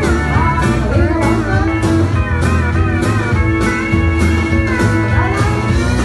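Country song with pedal steel guitar gliding between notes over a steady drum beat.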